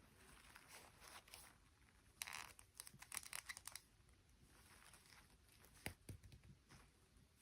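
Faint crinkling and tearing of toy packaging being handled, a burst of rustling about two seconds in that lasts over a second, then a single sharp click later on.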